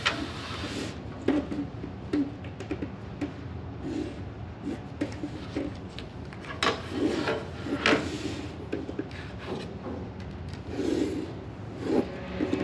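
A drawing tool rubbing and scratching across paper in a run of irregular strokes, some short and some drawn out for about half a second, as lines are drawn.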